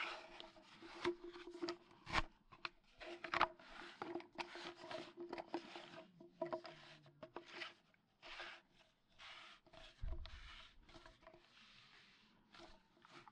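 Plastic pipe fittings being handled and screwed together: a faint, irregular run of short scraping and rubbing strokes with sharp clicks as the threads of blue compression fittings and a black plastic elbow turn against each other.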